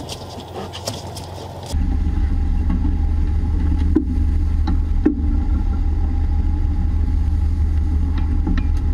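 A fishing boat's engine running with a steady low drone. It cuts in abruptly about two seconds in, with a couple of knocks over it.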